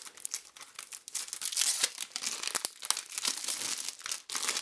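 Cellophane shrink wrap being torn open and crumpled off a CD jewel case: a dense run of crackling crinkles, louder from about a second in.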